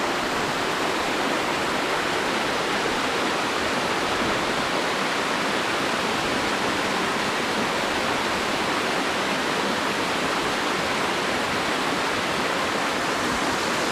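Steady rushing of a creek cascading over rock at the top of a waterfall, an even, unbroken noise.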